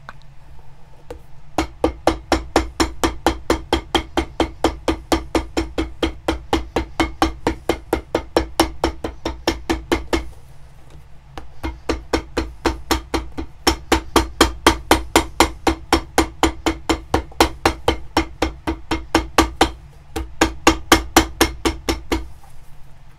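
Cobbler's hammer tapping rapidly on a leather boot held on a metal last, about four blows a second, each with a short metallic ring. The tapping runs in three bursts, breaking off briefly about ten seconds in and again near the end.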